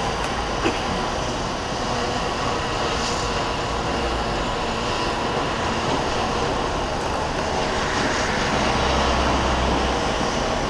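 Steady outdoor city din: a constant rumble and hiss of traffic and building-site noise, with one brief knock under a second in and a slight swell near the end.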